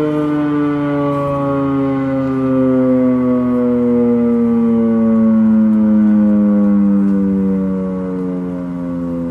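Federal Enterprises Model 5 electromechanical warning siren sounding on a Full Attack test, its pitch falling slowly and steadily as it winds down. Several tones sound together.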